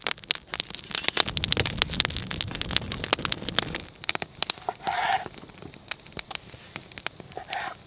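Wood campfire crackling with many small sharp pops.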